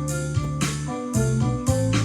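Roland E-X50 arranger keyboard playing an auto-accompaniment style: a drum beat about twice a second under held bass notes and keyboard chords.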